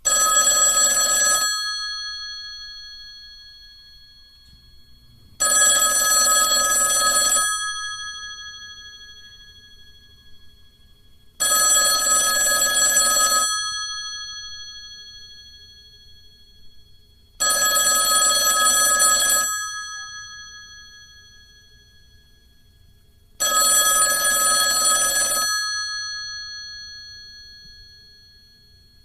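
Telephone ringing: five rings about two seconds long, one every six seconds, each fading away over a few seconds after it stops.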